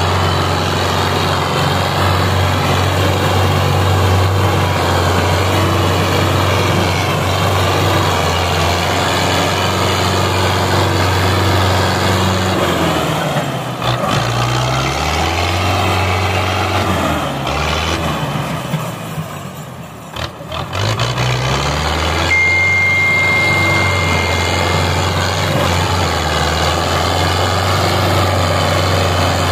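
Belarus tractor's diesel engine working hard to pull a loaded sugarcane trolley. About halfway through, the engine note sags and wavers and drops quieter, then picks back up to a steady run. A high steady tone sounds for a few seconds later on.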